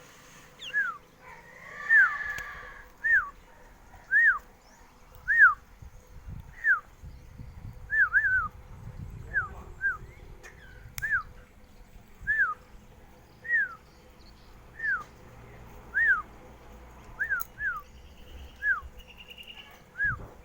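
A bird calling over and over: short, clear whistled notes that each slide downward in pitch, about one a second, sometimes in quick pairs.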